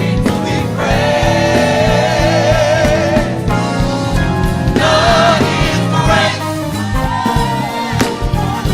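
Gospel choir singing long held notes with vibrato over instrumental accompaniment.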